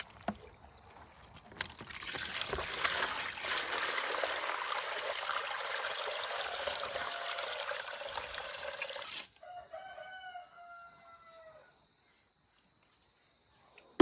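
A steady rushing noise for about seven seconds that cuts off suddenly, followed by a rooster crowing once, a single call of about two seconds that falls slightly in pitch at the end.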